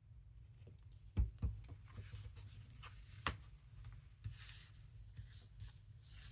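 Paper and cardstock being handled: journal pages and cards rustling and sliding, with scattered light taps and clicks, the loudest a little after a second in and at about three seconds. A low steady hum runs underneath.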